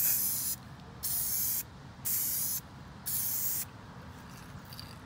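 Aerosol spray paint can spraying a car side mirror cover in four short hissing bursts of about half a second each, roughly one a second.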